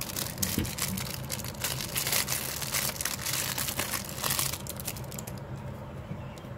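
Plastic crinkling and clicking as the tripod parts are handled, dense for the first four seconds or so, then sparser, fainter clicks.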